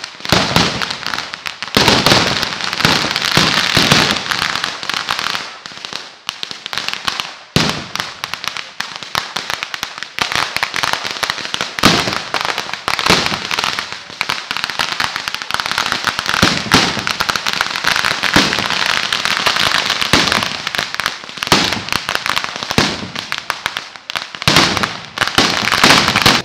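A long string of firecrackers going off in a dense, rapid crackle, with louder bangs every few seconds.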